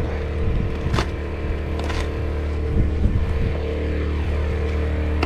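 An engine running steadily at a constant speed, with a couple of light knocks about one and two seconds in.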